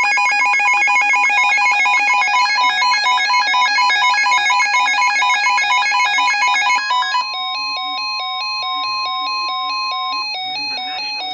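Emergency Alert System alert tones: a loud electronic alarm of rapid pulsing beeps in several pitches, changing about seven seconds in to a two-tone warble with a steady tone beneath it for about three seconds.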